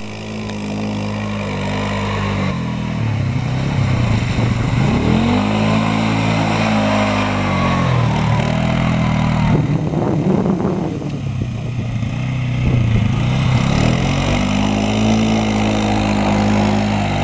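Polaris ATV engine revving up and down as it churns through mud and water, its pitch rising and falling several times, with water splashing around it.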